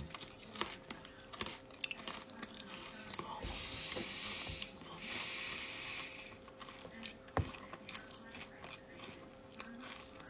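A person chewing and crunching food close to the microphone, with many small mouth clicks and two longer hissing rustles in the middle.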